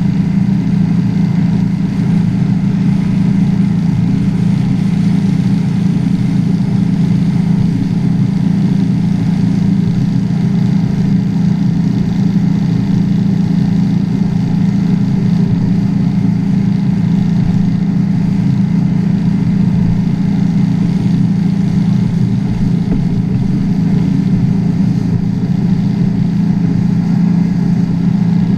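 Drag boat's exposed, carbureted V8 inboard engine running at a steady cruise, loud and even with no change in pitch, mixed with wind and water rush. The engine is being run easy because it is still in its break-in period.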